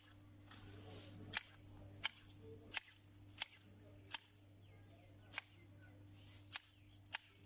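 Manual hedge shears snipping through shrub twigs: about eight sharp snips of the blades closing, quick and regular at first, then more spread out toward the end.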